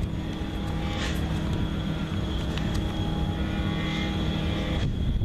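A steady motor drone with a low, even hum and a thin high whine, with a brief knock about a second in; it cuts off shortly before the end.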